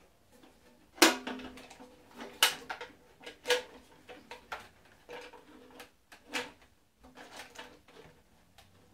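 Steel cal.50 ammo can clanking and knocking against the replica machine gun's mount as it is fitted in place: a string of irregular metal knocks, the loudest about a second in, several with a short metallic ring.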